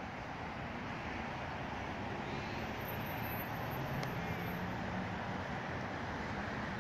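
Road traffic: a steady wash of tyre and engine noise from cars passing on a multi-lane road, with a faint low engine hum in the second half.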